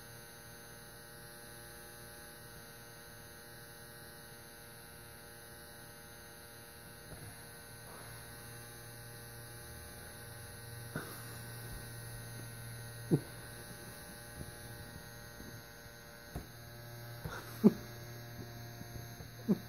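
Electric nail file running with a steady low buzzing hum. A few sharp taps break in over the second half, the loudest about three-quarters of the way through.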